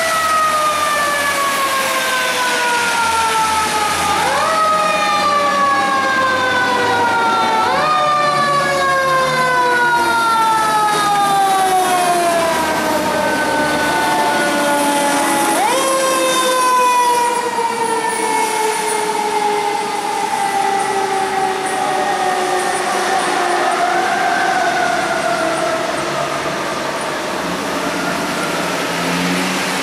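Federal Q mechanical siren on fire apparatus, wound up in quick rises several times and left to coast down in long falling wails, over a low diesel engine rumble and the hiss of tyres on a wet road.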